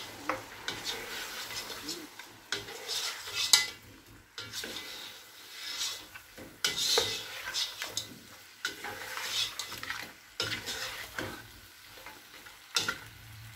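Mutton chops sizzling in a granite-coated wok while a spatula stirs them with tomatoes and spices, scraping and knocking against the pan in irregular strokes.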